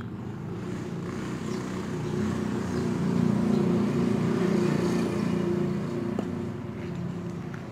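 A motor vehicle's engine passing by, growing louder to a peak about halfway through and then fading. A single light knock of a cleaver on a wooden chopping board comes about six seconds in.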